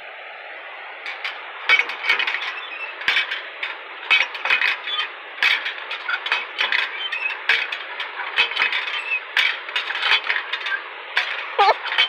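Old cast-iron hand water pump being worked by its wooden handle: irregular metallic clanks and knocks, about one or two a second, starting about a second in. No water comes up; the pump is dry.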